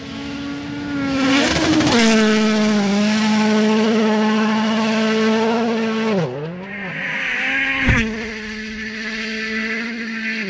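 Rally car engine running hard at high revs as the car passes at speed on a gravel stage. The revs dip and pick up again about six seconds in, and there is a sharp crack near eight seconds.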